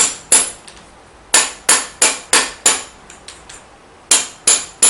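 Rubber mallet striking a loose fitting of a mixer drill to seat it tight after it came off under power: a series of sharp knocks, about three a second, in short groups of three to five with brief pauses and a few lighter taps between.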